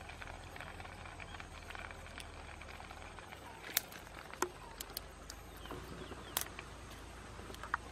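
Quiet outdoor background with a few scattered sharp clicks and ticks.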